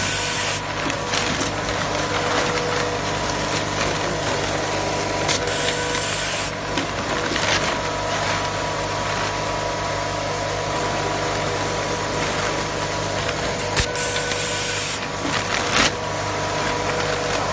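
SWT AT 36150F automatic cable tie machine working on a bag-sealing line over a steady machine hum. Three short, loud bursts of air hiss come at the start, about five seconds in and about fourteen seconds in, each marking a tying cycle as a tie is fed into the jaw and cinched around a bag neck.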